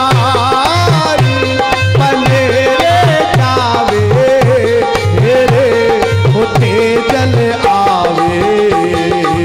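Rajasthani devotional bhajan music: harmonium with a hand drum keeping a steady beat, under a melody that slides in pitch. An instrumental passage with no sung words.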